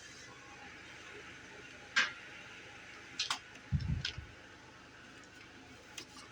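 A few scattered sharp clicks, the loudest about two seconds in, and a short low thump a little before the four-second mark, over a faint steady hiss.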